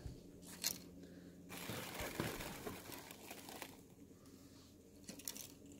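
Faint crinkling and rustling of packaging being handled in a cardboard box, in a few short spells.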